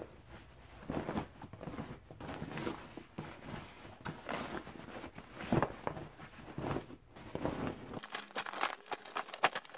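Cotton fabric cover stiffened with iron-on interfacing rustling and crinkling in irregular strokes as it is handled and turned right side out, with a louder rustle about five and a half seconds in.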